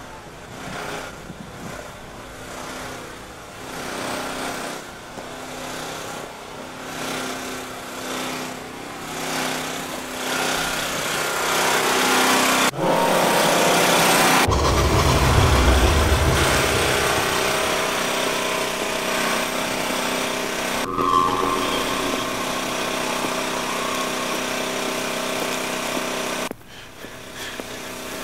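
Steady mechanical drone of engine-driven machinery, with several pitched hum lines. It breaks off abruptly three times, and a heavy low rumble comes in about halfway through.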